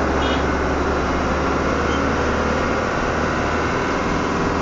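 Hino Dutro light truck's diesel engine and road noise heard from inside the cab while driving, a steady drone.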